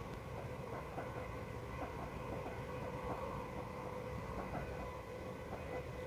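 Passenger train running at speed, heard from inside the carriage: a steady rumble of the wheels on the track with a steady hum over it and faint light ticking about three times a second.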